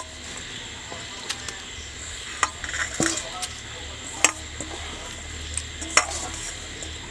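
Batter-coated arum flower pieces going into hot oil in a wok, with a low steady sizzle. About five sharp metal clinks come from the steel mixing bowl as the batter is scooped out, the loudest about four and six seconds in.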